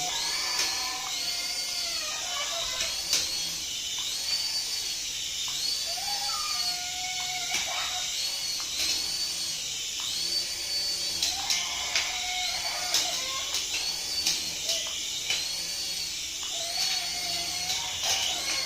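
A battery-powered toy's high-pitched whine that rises and falls in pitch about every second and a half, with a lower wavering tone and occasional clicks.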